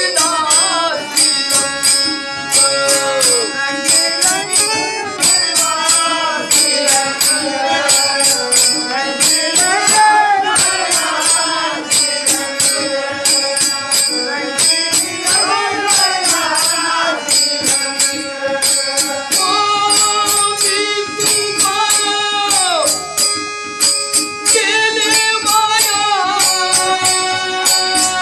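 A man singing a devotional folk song in long, ornamented phrases that rise and fall. Underneath are steady held drone notes and a regular beat of sharp jingling percussion strikes.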